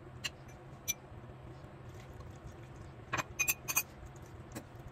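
Metal fork clinking against a ceramic bowl while stirring noodles: a couple of light clicks, then a quick cluster of clinks about three seconds in and one more near the end, over a low steady hum.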